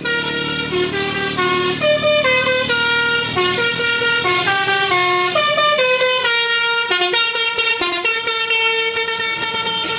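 A tour bus's 'telolet basuri' musical air horn playing a tune of short notes that step up and down in pitch, with a longer held note near the end. It cuts in suddenly and is loud.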